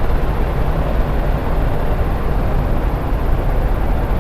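Steady engine and road rumble inside the cabin of a moving vehicle.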